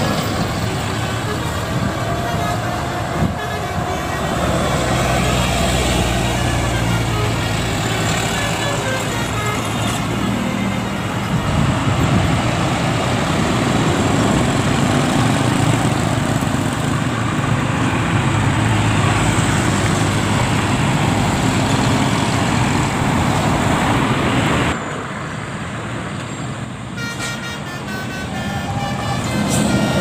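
Basuri telolet multi-tone bus horns playing rapid tooting melodies over vehicle and road noise. The sound drops abruptly in loudness about 25 seconds in, then the horn tones return near the end.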